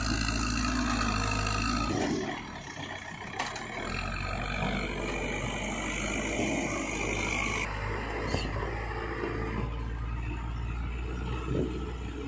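Caterpillar 424B backhoe loader's diesel engine running under load as the front bucket pushes a large uprooted tree, with a steady high whine over the engine. The engine note dips for about two seconds a couple of seconds in, then picks up again.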